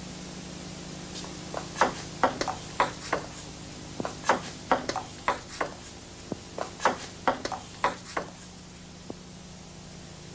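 Table tennis ball ticking off bats and the table in a quick rally: about twenty sharp clicks starting about a second and a half in, stopping about eight seconds in, with one last tick a second later. A steady hiss runs underneath.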